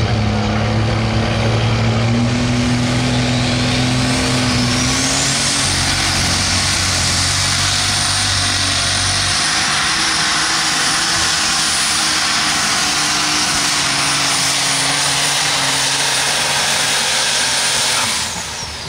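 Light super stock pulling tractor's turbocharged engine running at full throttle during a pull. A high turbo whine climbs over a few seconds in, holds as a steady high whistle, then falls near the end as the engine comes off throttle.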